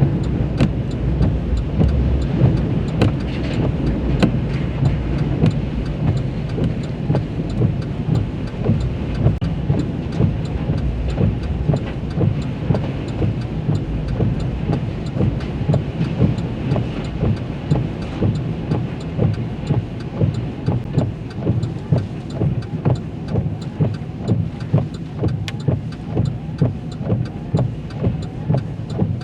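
Vehicle driving through a storm, with steady road and engine noise and some rain, and a regular pulse about one and a half times a second that grows stronger in the second half.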